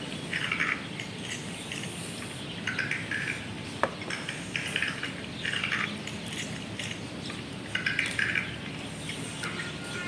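Eating boat noodles from a bowl: a handful of short mouth and slurping noises, and a sharp clink of a utensil against the bowl a little before the middle.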